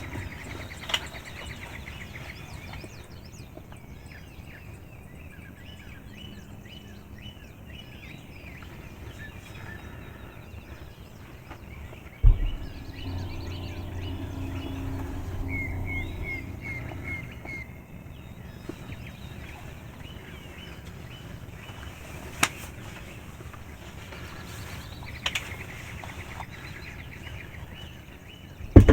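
Songbirds chirping through the morning woods, with a quick run of about six short yelping notes in the middle. Two sharp thumps stand out, one about twelve seconds in and a louder one near the end.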